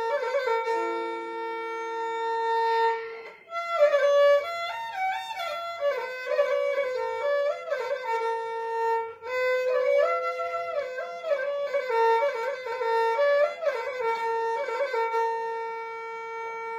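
Background instrumental music: a single melody of long held notes with quick ornamental turns, breaking off briefly about three seconds in.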